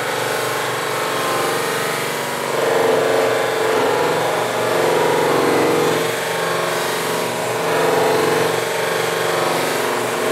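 Slow-speed bench grinder with cloth buffing wheels running with a steady hum, as a perspex sheet is pressed against the tripoli-charged wheel to buff it. The rubbing swells and fades in several passes, a couple of seconds apart.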